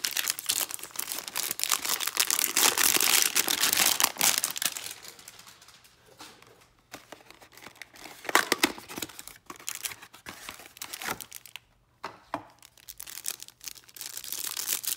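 Trading-card hanger box being torn open and the plastic wrapper around the card stack crinkled by hand. Loud, continuous crinkling and tearing for about the first four seconds, then quieter with scattered sharp crackles, and more crinkling near the end.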